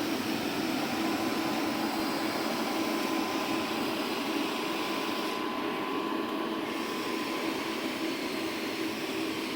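AMI 415 orbital welding power source running a TIG weld test with a 79/3500 orbital weld head: a steady whir and hiss with a low, even hum. The high hiss dips briefly about six seconds in.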